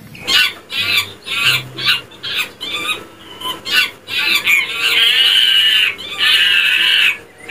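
Chimpanzee calling: a quick run of short, high calls, about three a second, then two long, wavering high shrieks near the end.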